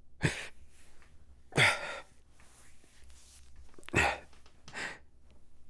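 A man's breathy exhales and sighs, four short ones spread over about five seconds, close to the microphone.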